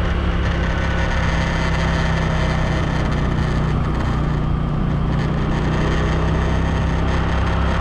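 Small automatic scooter engine running at a steady pace while riding, a constant low drone with a rushing noise over it.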